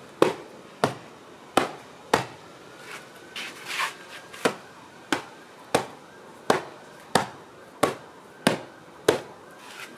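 Fists punching a wall-mounted wing chun sandbag: a steady series of about fifteen sharp thuds, roughly one every two-thirds of a second.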